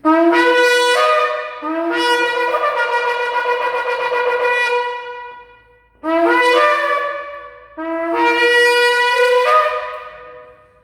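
Shofar being blown in two groups of blasts. Each blast starts on a low note and jumps up to a higher one, and each group ends in a long held note of about three seconds.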